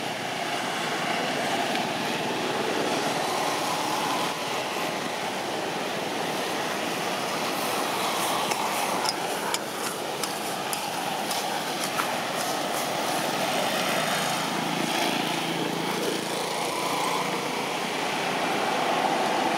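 Steady drone of engines from nearby motor traffic. A few faint clicks come about halfway through.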